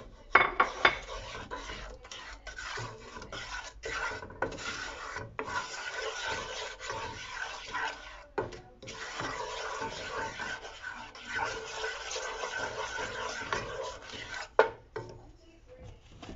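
Wooden spoon scraping and rubbing around the bottom of a nonstick skillet as flour is stirred into gravy, a steady rasp broken by brief pauses. A few sharp knocks sound about half a second in, and one more near the end.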